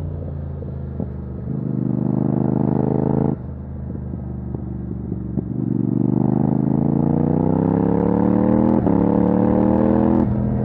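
Yamaha MT-07 parallel-twin engine through a titanium Akrapovic exhaust with no dB killer, ridden hard. A short burst of throttle cuts off sharply about three seconds in, and a few sharp cracks come through while the throttle is closed. Then a long pull climbs steadily in revs and drops off suddenly near the end as the throttle shuts.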